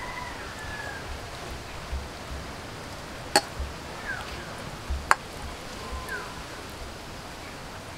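Hands working a thick, wet spice paste into a pomfret in a steel bowl: soft handling noise with low bumps, and two sharp clicks about three and a half and five seconds in. A few faint short chirps come and go in the background.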